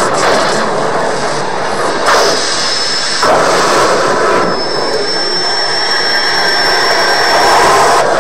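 Film sound effect of the Klingon Bird-of-Prey's engines as the ship flies low over the water: a loud, steady rushing noise like a jet engine. A thin high whistle comes in about two seconds in and again from about halfway to near the end.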